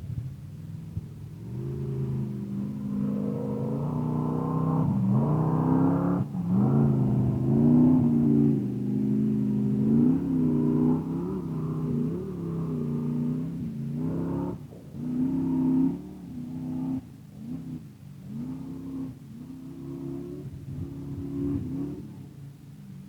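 Off-highway vehicle engine revving up and down over and over, with the pitch rising and falling every second or two. It is loudest in the first half, then fades as it moves away.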